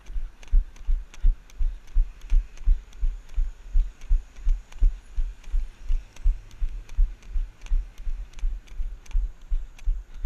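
Running footfalls thudding through a body-worn GoPro action camera, a steady rhythm of nearly three steps a second, each with a light click from the camera mount.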